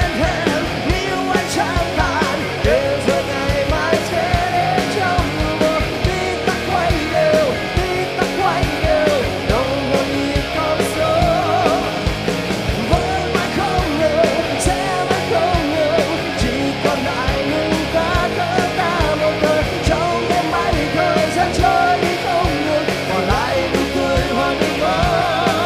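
A rock band playing loudly with drums and electric guitars. A wavering melodic lead runs over a steady beat between sung lines.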